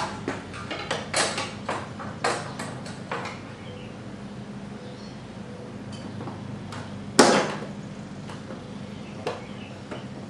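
Plastic scooter body panel being pried off by hand: a quick run of clicks and knocks over the first few seconds, then one loud sharp snap about seven seconds in as its clip-in retaining tabs are popped loose.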